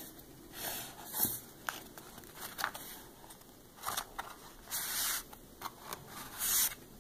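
Stiff paper and card rustling and scraping in a series of short bursts as a black paper sleeve is folded back and a CD is slid out of it.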